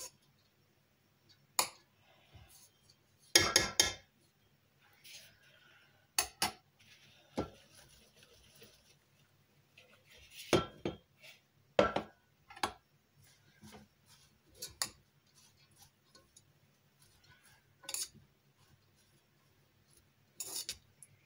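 Kitchen utensils and dishes clinking and clattering in short, irregular bursts as kısır (bulgur salad) is being prepared, the loudest clatter about three seconds in.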